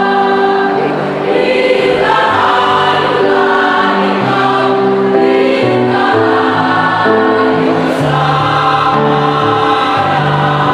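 Mixed choir of women's and men's voices singing in parts, holding notes together in harmony as the chords change.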